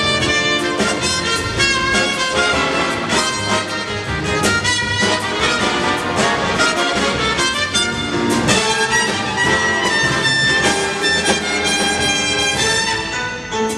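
Big band playing live: trumpets and trombones in full ensemble over a driving drum kit.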